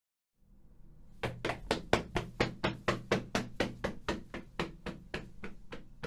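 Running footsteps: quick, even strides at about four steps a second, starting about a second in over a steady low hum and growing fainter in the second half.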